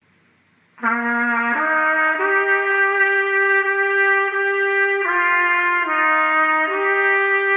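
Solo trumpet playing a slow melody of long held notes, starting about a second in.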